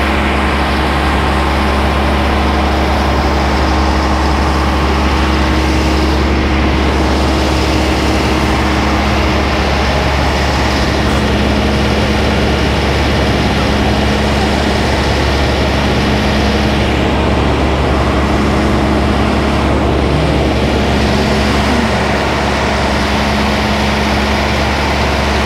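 Large engine running steadily: a loud, even, low drone with a steady hum above it.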